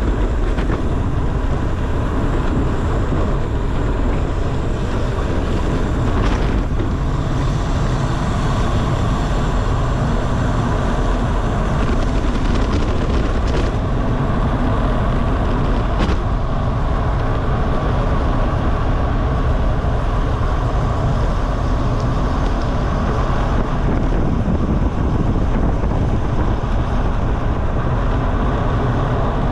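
Wind rushing over the microphone of a road bike descending at speed, a steady loud rush mixed with tyre and road noise, with a couple of brief ticks.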